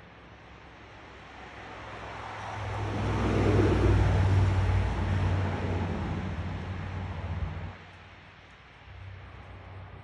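A motor vehicle passing by: engine hum and road noise build over a couple of seconds, are loudest about three to five seconds in, then fade and drop away fairly suddenly near eight seconds.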